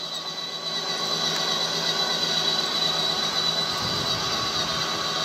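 Battery-powered Polaris ride-on toy quad driving along: a steady high electric motor and gearbox whine over the rumble of its hard plastic wheels rolling on asphalt.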